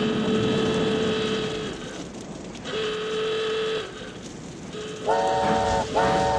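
Two steam whistle blasts, the first about a second and a half long and the second shorter; then, about five seconds in, a harsher multi-note horn starts up in long repeated blasts with brief breaks.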